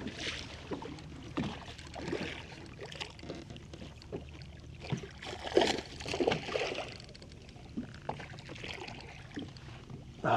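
Scattered knocks and short splashy bursts as a hooked smallmouth bass is brought alongside the boat and landed, over a low steady wash of wind and water.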